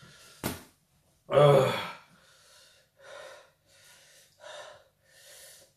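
A man gasping and panting hard from the burn of a naga-chili curry, with one loud voiced cry about a second and a half in, then a run of shorter breathy gasps. A brief sharp noise comes about half a second in.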